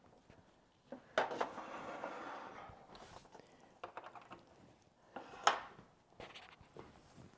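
Handling noises while an electric roaster oven's power cord is plugged in: a knock about a second in, then about a second and a half of rustling, scattered small clicks, and a sharp click about five and a half seconds in.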